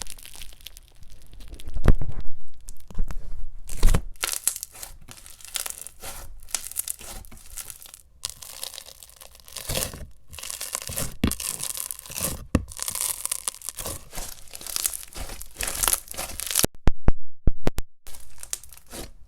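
Clear glue-based crunchy slime being squeezed and stretched by hand, giving dense crackling and popping, with a few brief pauses.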